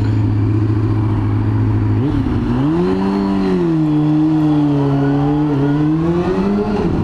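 Yamaha YZF-R6 inline-four engine idling steadily, then rising in pitch about two seconds in as the revs go up. It holds at the higher revs with a small dip, then climbs again near the end.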